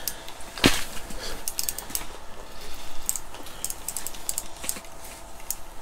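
Fishing reel clicking in quick, irregular ticks as a hooked burbot is reeled up through the ice, with one louder click about two-thirds of a second in.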